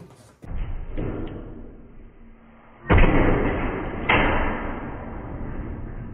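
Steel tub of an Ultratec dump trailer springing up on its own when its release latch is kicked, after a quieter clatter banging loudly twice about a second apart, each bang dying away over a second or so. It comes up with a lot of force, because the tub is set to rise to help dump the load.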